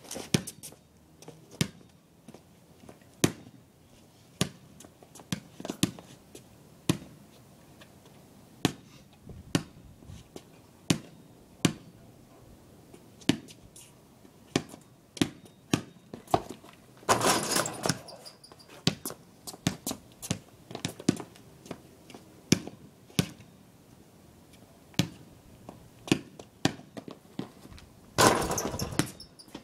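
Basketball bouncing on hard pavement: sharp single bounces, roughly one a second at an uneven pace. A longer, noisier crash comes about halfway, and another near the end as the ball is slammed through the hoop on a dunk, rattling the rim and backboard.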